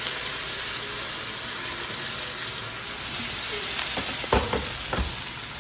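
Chopped onion, green pepper and tomato sizzling steadily as they hit hot oil with browned garlic in a pot, with two short knocks a little after four and five seconds in.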